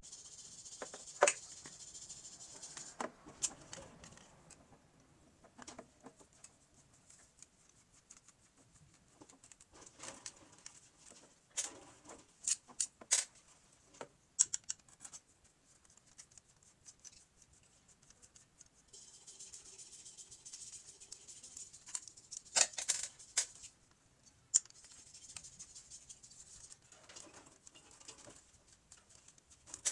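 Handling noise from working on a pedestal fan's electric motor with a screwdriver: scattered metal clicks and clinks of tool, motor housing and small screws and nuts on a hard table, with stretches of scratchy rubbing at the start and again in the second half.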